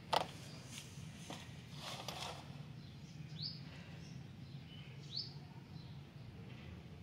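A bird's short, rising chirp, repeated about every two seconds over a low steady background hum. A sharp tap just after the start is the loudest sound.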